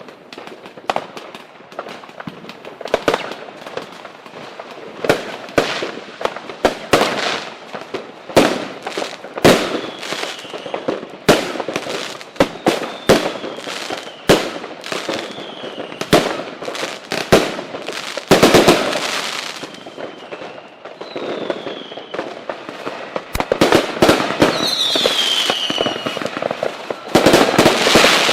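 Fireworks going off: a dense, irregular run of sharp bangs and crackles, with several short whistles that slide down in pitch, and thick bursts of crackling about two-thirds of the way in and near the end.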